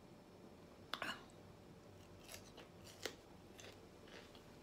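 A crisp bite into a raw bell pepper strip about a second in, then a few fainter crunches as it is chewed.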